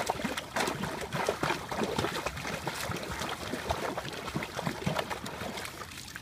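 Water splashing and sloshing in quick, irregular strokes as a pug paddles with its legs.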